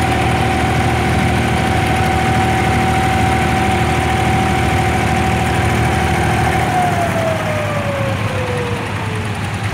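Boat engine of an abra water taxi running steadily, then throttling back about seven seconds in, its pitch falling as the boat slows.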